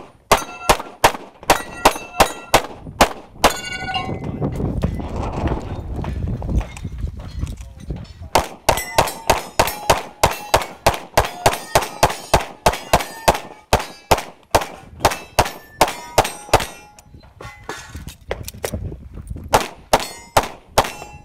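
Rapid strings of shots from a 9mm major 2011 competition pistol, each hit answered by the clang and ring of steel targets. There is a fast string at the start, a pause of about four seconds, a long fast string through the middle, and a few more shots near the end.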